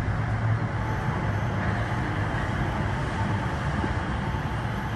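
Rubber-tyred Skytrain people mover arriving at the station platform: a steady rumble with a low hum.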